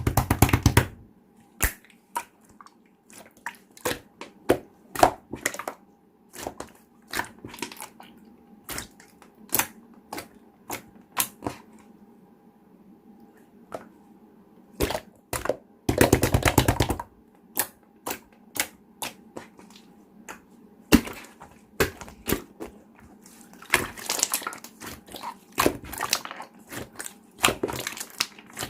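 Hands playing with clear slime: scattered sharp clicks and pops, with a few dense bursts of rapid crackling pops, the longest about fifteen to seventeen seconds in.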